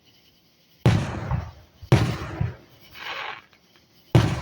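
Aerial fireworks shells bursting: three sharp booms, about a second in, about two seconds in and near the end, each trailing off in a short rumble.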